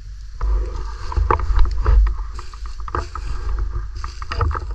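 Irregular crunching and rustling of dry leaves and thin snow, starting about half a second in, over a low rumble on the microphone.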